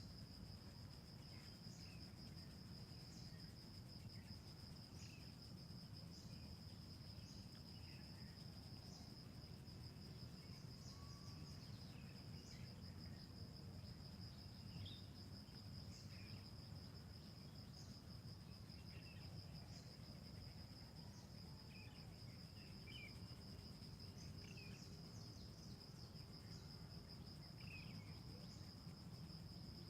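Faint, steady high-pitched trill of a cricket, continuous at one pitch, with brief bird chirps scattered through it over a low background hiss.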